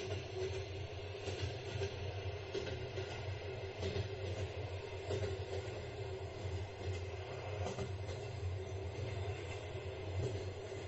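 Passenger train running along the track, heard from on board: a steady low rumble with a constant hum and a few faint clicks of the wheels over the rails.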